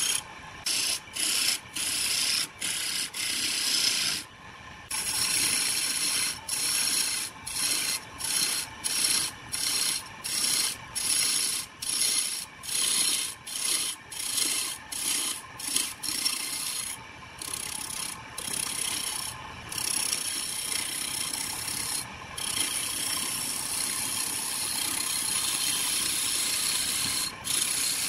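Hand-held turning chisel cutting into a log blank spinning on a homemade belt-driven wood lathe: a steady scraping hiss of shavings peeling off the wood. It is broken by frequent short gaps through the first half, then runs more evenly.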